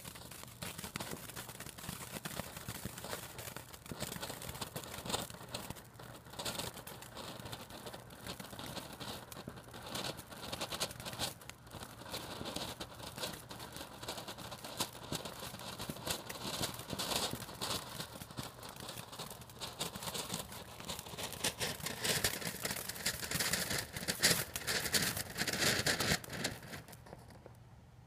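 Firework fountain burning with continuous crackling and hissing. It grows loudest in its last few seconds, then cuts off near the end as it burns out.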